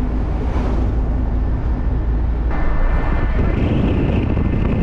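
Safari jeep driving along a road, heard from inside the open vehicle: a steady engine and road rumble that grows a little louder and brighter about halfway through.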